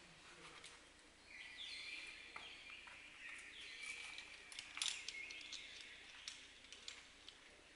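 Birds calling in a sinkhole: clear whistled notes held steady and stepping up and down in pitch, starting about a second in and fading before the end. Scattered sharp clicks sound through the calls.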